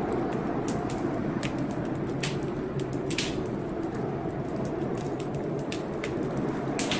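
Fireplace wood fire crackling, with irregular sharp pops about twice a second over a steady low rushing noise.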